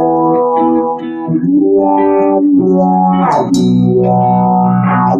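Guitar intro of a rock song: sustained chords ringing and changing about once a second, with bass guitar underneath.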